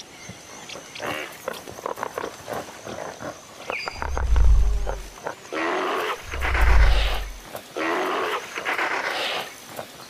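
Indian rhinoceroses vocalising while mating, the bull mounted on the female: two heavy, deep rumbling grunts about four and six and a half seconds in, each running into a long hoarse blast of breath, with a third breathy blast near the end.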